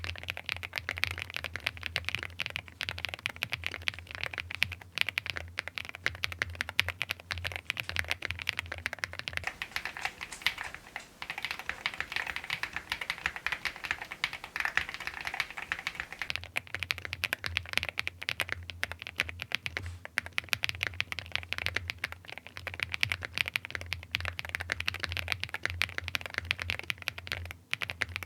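Continuous fast typing on a Zoom75 mechanical keyboard with Kinetic Labs Husky linear switches, lubed, foam-filled and tape-modded: a dense, unbroken stream of keystrokes.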